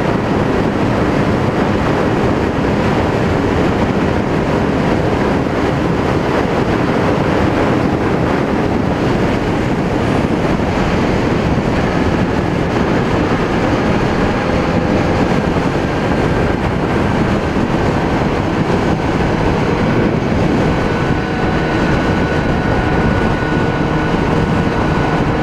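Kawasaki Z900RS inline-four engine running steadily at highway cruising speed, with wind rushing over the helmet-mounted microphone.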